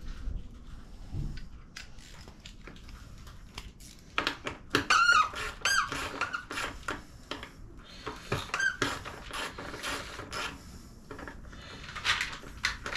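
Plastic squeaking and creaking as the plastic tank shroud of a Suzuki RM65 dirt bike is pushed and worked into place, with several short squeals, the loudest about five seconds in, and light clicks and knocks between them.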